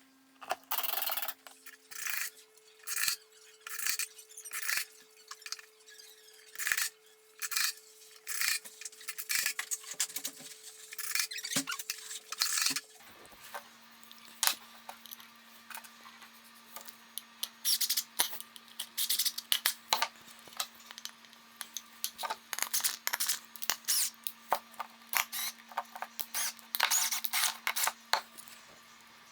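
Repeated short clinks, taps and scrapes of hard objects being handled, irregular and quick, over a faint steady hum.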